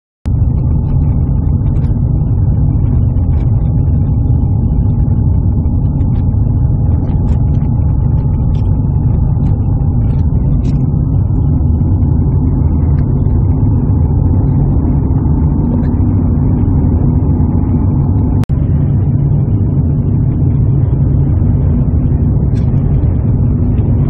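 Steady low rumble of a moving car, road and wind noise, with faint scattered ticks above it. The sound drops out for an instant about three quarters of the way through.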